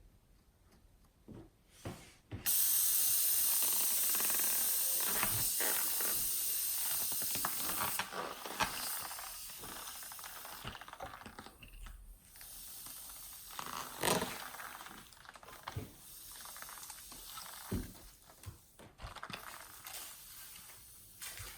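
Air hissing out of a balloon, starting suddenly about two seconds in and slowly fading, with crackling and small clicks throughout.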